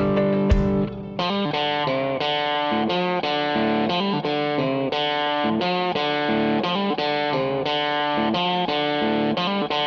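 Background instrumental music led by guitar, a run of plucked notes changing about twice a second, with a short dip about a second in.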